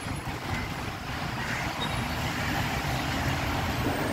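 Steady low rumble of a bus engine with road noise, heard from inside the cabin as it rolls slowly.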